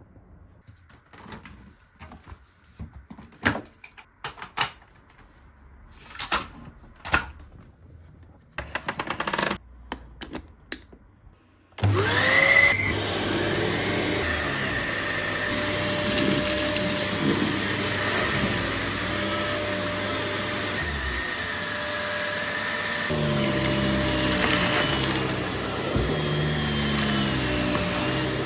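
A few scattered clicks and rattles, then about twelve seconds in a Dyson DC08 Animal vacuum cleaner switches on. Its motor whines up to speed and then runs steadily.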